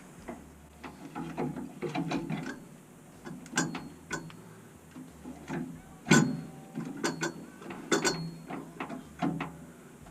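Irregular clicks and knocks of a drain fitting being worked by hand into a new boiler circulator pump, the loudest knock about six seconds in and another near eight seconds with a brief metallic ring.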